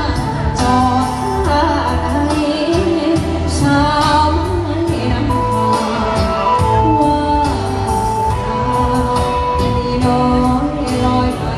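Live Thai luk thung song: a solo singer's voice, wavering on held notes, over a band with a steady bass line, amplified through a stage PA.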